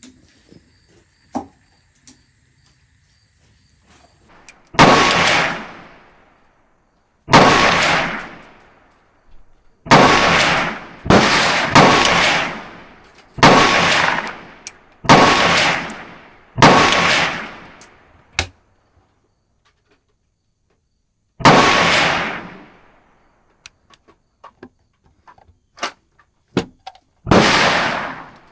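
Ten single rifle shots from a 7.62x39 AR-15, fired one at a time at uneven intervals, each trailing off over about a second.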